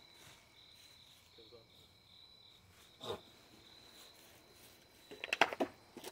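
Crickets chirping steadily, a thin high-pitched trill, with one sharp knock about three seconds in and a quick cluster of sharp clicks or knocks near the end.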